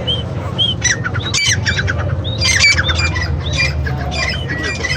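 Several birds squawking in rapid, overlapping harsh calls, over a steady low rumble.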